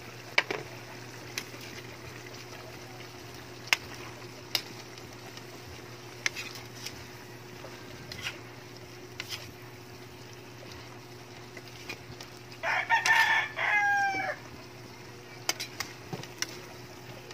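A rooster crows once, about three-quarters of the way through, a call of about a second and a half ending in a falling note. Occasional sharp clicks of a metal ladle on a steel wok sound while it is stirred, over a steady low hum.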